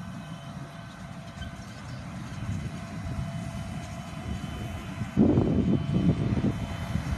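CLAAS Xerion 4500 tractor pulling a Bourgault air drill and seeder, its engine running steadily with a faint whine. About five seconds in, wind buffets the microphone loudly and irregularly.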